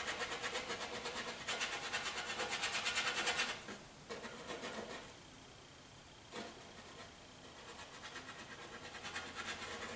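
Bristle brush scrubbing oil paint onto canvas in quick rhythmic strokes, about ten a second, stopping about three and a half seconds in. There is a single tap a few seconds later, then fainter brushing near the end.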